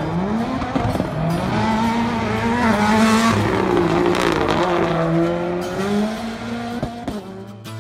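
Subaru WRX rally car's turbocharged flat-four engine revving up and down hard as the car slides through tight turns, with some tyre squeal. Music comes in near the end.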